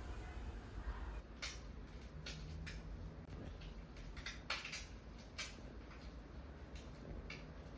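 A series of light, irregular clicks and knocks over a low steady hum, like small household objects being handled.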